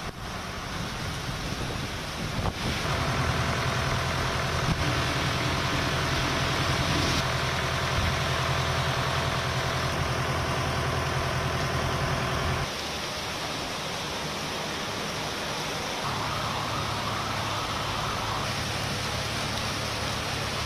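Heavy rain falling: a steady wash of noise with a low hum under it. It shifts suddenly about two and a half seconds in and again a little past halfway.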